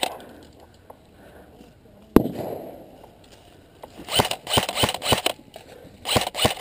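Airsoft guns firing: one sharp crack about two seconds in, then two runs of quick repeated shots in the last few seconds.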